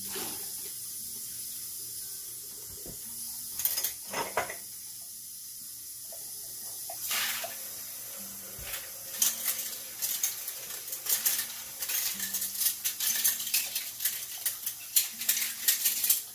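Kitchen tap running into a sink with a steady hiss, while glass canning jars clink and knock as they are lifted out of hot water and set down. There are a few clinks early, then they come thick and fast in the second half.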